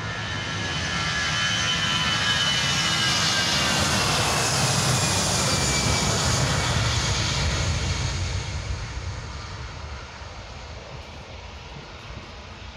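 Airbus A320-214's CFM56-5B turbofans at takeoff power as the jet rolls past on the runway: a jet roar that builds, holds and fades after about eight seconds, with a high engine whine sliding down in pitch as it goes by.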